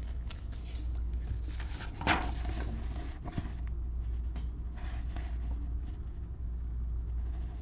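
A printed paper sheet being handled and moved about, with a sharp rustle about two seconds in and a smaller one about a second later, over a steady low hum.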